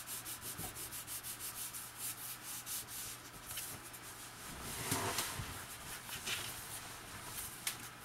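Fingers rubbing along the fold of paper cardstock to crease it, in quick repeated strokes, with one longer, louder sweep of paper about five seconds in.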